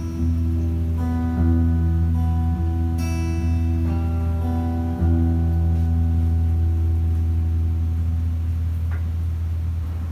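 Acoustic guitar playing slow, sustained chords with deep low notes. The last chord, struck about five seconds in, rings on and slowly fades.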